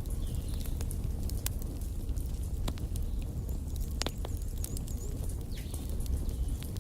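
Wood fire burning in a fireplace: irregular sharp crackles and pops, the loudest about four seconds in, over a steady low rumble of the flames. A few faint high wavering whistles come and go.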